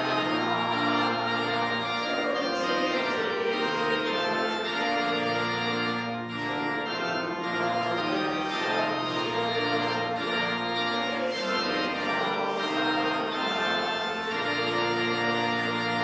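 Church organ playing a hymn in full sustained chords, with a steady bass line under changing harmonies.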